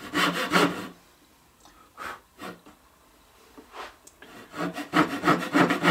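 Handsaw cutting across a wooden workpiece, down a marked line: quick back-and-forth strokes, about five a second. The sawing stops about a second in, a few single strokes follow, and another quick run of strokes comes near the end.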